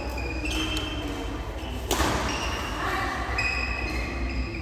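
A badminton racket cracks against a shuttlecock once, about two seconds in, with short high squeaks of court shoes on the sports floor around it. The hit rings out in the echo of a large sports hall over a steady low hum.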